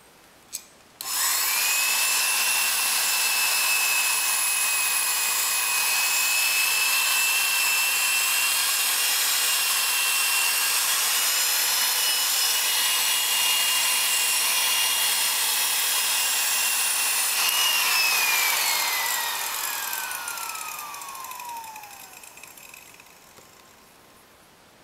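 A power tool spinning a felt buffing wheel polishes a wooden interior trim panel. It clicks on, runs with a steady high whine, then is switched off and winds down with a falling whine over a few seconds.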